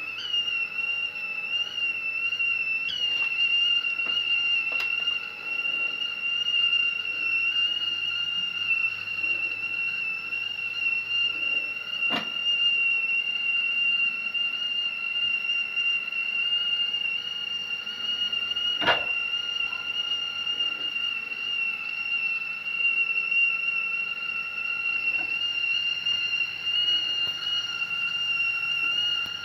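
Whistling kettle whistling at the boil: one steady, high, slightly wavering tone with fainter overtones above and below. Two short clicks come in the middle stretch, and the whistle starts to drop in pitch right at the end.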